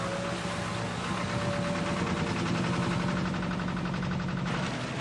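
Small boat motors running steadily at speed, a droning engine note with a fine fast pulse, over the hiss of rushing water and spray.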